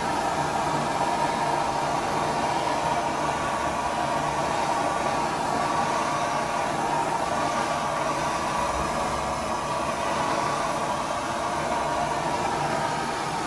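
Blowtorch burning with a steady hiss, played over an oil painting.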